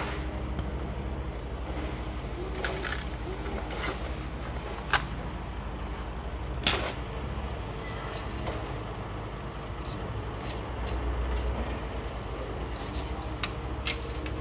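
Sharp knocks and cracks of a machete striking and splitting bamboo, a dozen or so at uneven intervals, over a steady low rumble.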